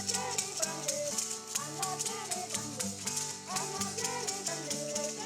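Music with a rattle keeping a quick, steady beat of about four or five strokes a second, over sustained low notes and a gliding melody line.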